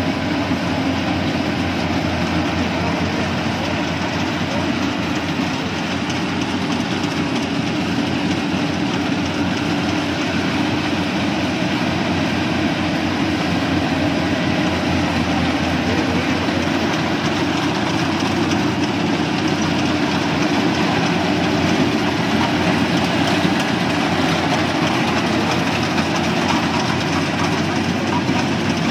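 Yanmar YH850 rice combine harvester working under load as it cuts standing rice: a steady diesel engine drone mixed with the rattle of the cutting header and threshing machinery, growing a little louder in the second half.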